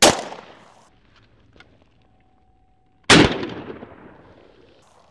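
Two shotgun shots at doves, about three seconds apart, each trailing off over a second or two.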